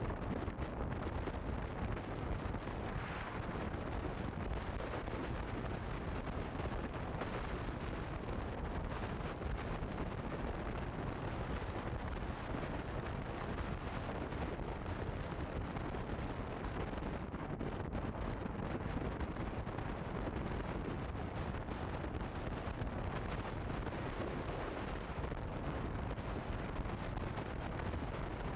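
Steady low wind rumble on the microphone of a motorcycle camera while a Honda CB150F rides along at speed, drowning out any clear engine note.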